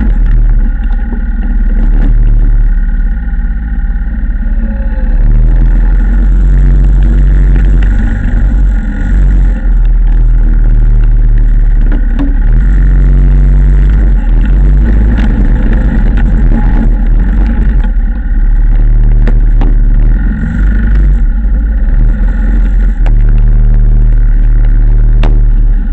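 2007 Yamaha Wolverine ATV engine running as the ATV pushes snow with a front-mounted plow blade. There is a strong deep rumble, and the engine note swells and eases every few seconds as the machine works.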